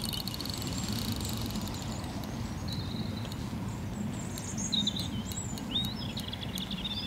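Small birds chirping in short, high, wavering phrases over a steady low outdoor background noise.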